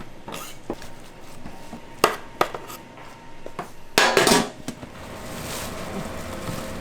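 A handful of sharp knocks and clatters of hard objects, the loudest a quick cluster about four seconds in.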